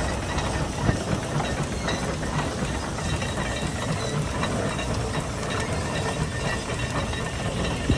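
Case 150 steam traction engine working under load on a plow: a steady hiss of steam over a low rumble, with faint irregular clanks.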